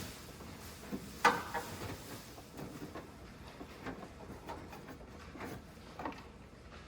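Scattered small knocks, clicks and rubbing from parts being handled, with one sharper knock a little over a second in.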